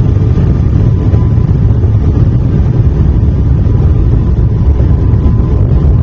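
Airliner passenger-cabin noise in flight: a loud, steady drone of engines and rushing air, heaviest in the low range, with a faint steady whine over it.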